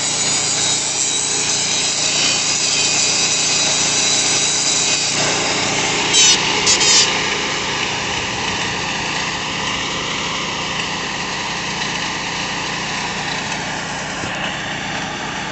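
Power grinder grinding concrete, a steady abrasive whine and rasp, with three brief louder rasps about six to seven seconds in.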